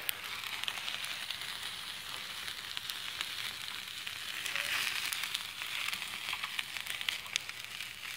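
Open wood fire crackling: a steady hiss with many small, sharp pops throughout.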